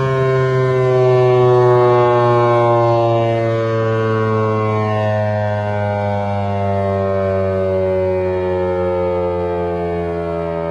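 Federal Signal 508 electromechanical outdoor warning siren sounding loudly, its tones falling slowly and steadily in pitch as it winds down.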